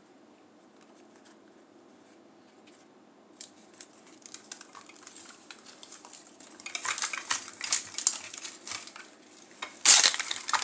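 Plastic wrapping crinkling and rustling as hands unwrap a small toy. It starts as a few scattered crackles, grows into dense crinkling from about the middle, and ends with a loud crackle.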